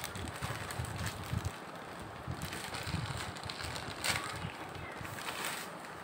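Rustling and handling noise as a parcel's wrapper is pulled open by hand, with low bumps of the phone being handled and a few brief sharp crinkles, the clearest about four seconds in.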